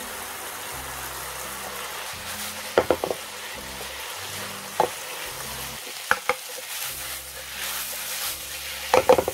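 Sliced shiitake mushrooms and onion sizzling in a frying pan over a gas burner while being stirred with a wooden spoon. A few sharp knocks of spoon and pan come through, loudest about three seconds in and near the end.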